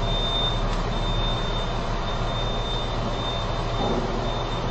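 Steady running drone of a truck at idle: a low hum with a thin, constant high whine.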